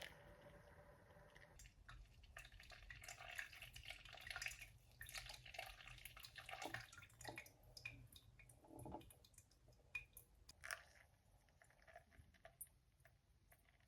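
Faint scattered clicks, taps and light wet sounds of hands working with coffee-making equipment, with a low hum underneath.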